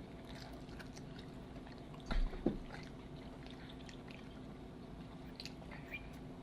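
Quiet chewing and small wet mouth sounds of someone eating a cheeseburger, with scattered soft clicks and a dull thump about two seconds in.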